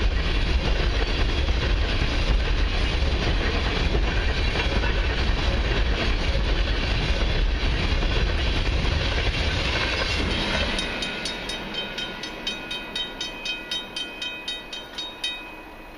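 Empty crude oil tank cars of a freight train rolling over a level crossing, a loud steady rumble of wheels on rail. The end of the train clears about ten seconds in, leaving the crossing bell ringing rapidly until it cuts off shortly before the end as the gates go up.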